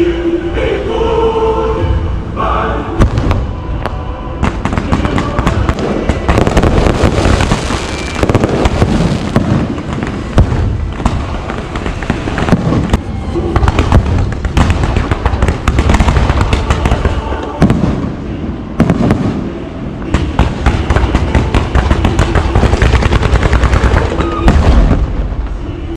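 Fireworks going off in rapid, continuous volleys of bangs and crackling, with music faintly underneath.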